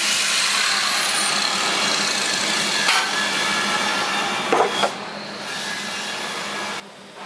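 Angle grinder grinding steel, cutting off a tack-welded bridge plug on a pipe joint, with two sharp hammer knocks about three and four and a half seconds in. The grinding stops about five seconds in.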